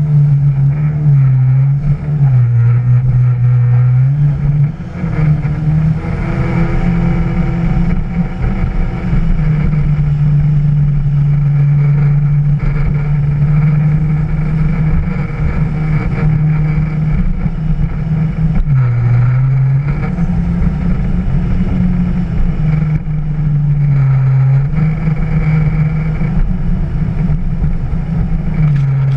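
Yamaha WaveRunner jet ski engine running at speed over a steady rush of water. Its pitch drops briefly a few seconds in and twice more later as the throttle eases, then climbs back.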